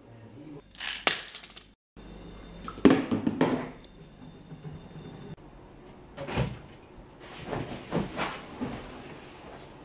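Several separate dull thuds and knocks of plastic water bottles being flipped and landing on furniture and tabletops, the loudest about three seconds in.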